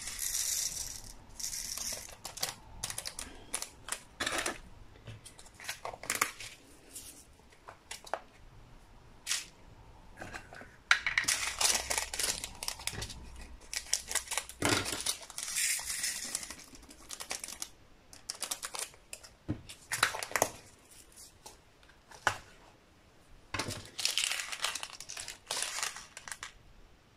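Small plastic bags of diamond-painting drills crinkling as they are handled, with clicks of small plastic drill containers, in short irregular bursts.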